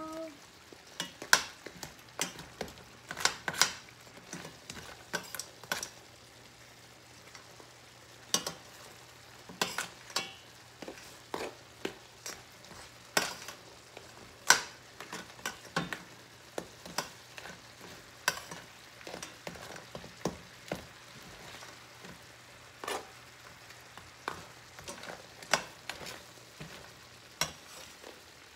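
A metal spoon clinking and scraping against a stainless steel pan in irregular strokes, about one or two a second, while stirring crab pieces in coconut milk, over a faint simmering sizzle.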